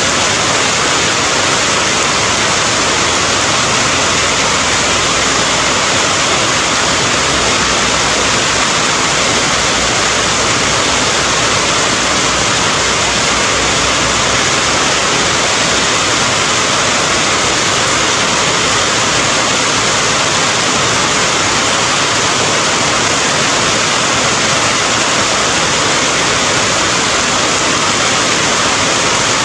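Steady rain: an even, unbroken hiss of falling water with no drips or drops standing out.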